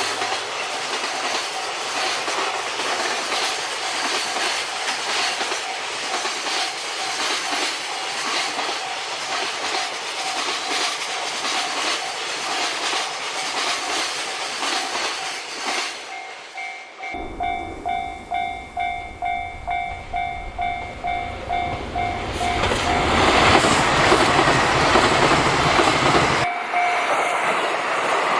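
A train running past over a level crossing, its wheels clattering on the rails, with the crossing's warning bell ringing under the noise. About two thirds through, the train noise drops away suddenly and the crossing bell rings clearly, about two clangs a second. Loud rushing noise swells up near the end.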